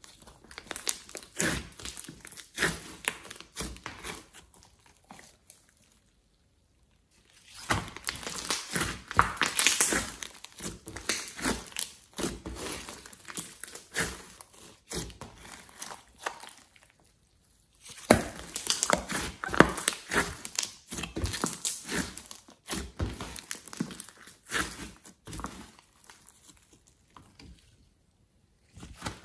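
Hands kneading, squishing and stretching a large lump of slime: dense, sticky crackling and popping clicks as air pockets burst and the slime pulls apart, in stretches of several seconds broken by three short silent pauses.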